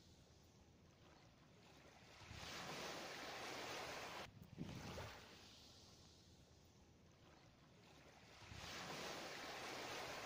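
Faint ocean surf: waves washing in and drawing back, heard as two slow swells of noise about six seconds apart.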